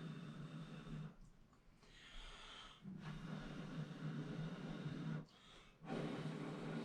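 A person's breathing close to a clip-on microphone, in several long breaths with short pauses between them.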